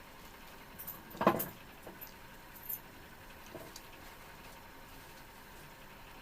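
Eating sounds from a person eating rice and fish curry: a few short mouth clicks and smacks, with one sharper knock, like a hand or bowl against the plate, about a second in.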